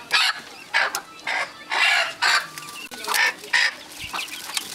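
Domestic chickens squawking and clucking in a run of short, loud calls about half a second apart, dying down near the end.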